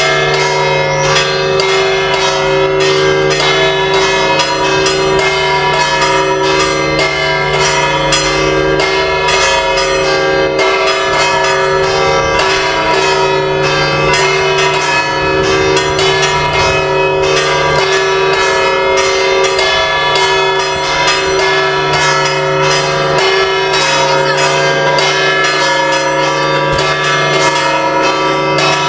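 Church bells of the Asunción church in Hellín ringing continuously and loudly, many strikes following one another quickly over a steady ringing hum.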